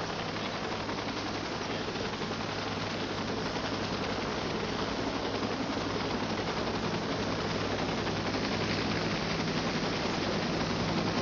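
Helicopter in flight: a steady drone with the rapid chop of the rotor blades, growing slowly louder.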